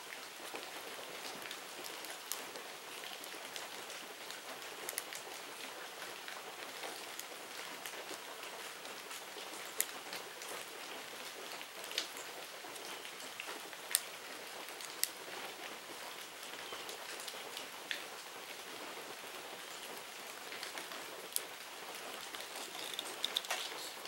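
A steady, even hiss like light rain, with a few scattered sharp ticks.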